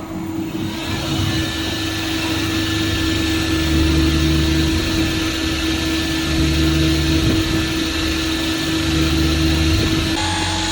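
East-CNC 200MSY CNC slant-bed lathe running: a steady machine hum with a constant tone, and a low rumble that swells three times for about a second each.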